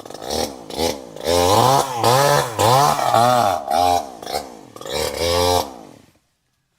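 Chainsaw engine revved in a series of throttle blips, its pitch rising and falling about six times, then dying away and stopping near the end.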